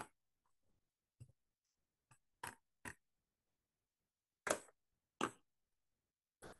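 Scattered light taps and clicks of plastic, about eight in all, the two loudest about halfway through: a round ink pad being picked up and dabbed onto a clear stamp in a stamp positioning platform.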